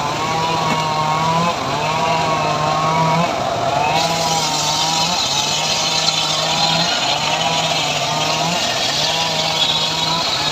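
Engine-driven homemade sawmill running, with a regular pulse about every second and a half. About four seconds in, a hiss joins as the saw blade cuts into sengon wood.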